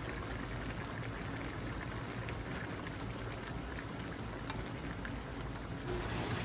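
Spaghetti simmering in tomato sauce in a frying pan, a steady bubbling hiss, as a wooden spoon stirs it.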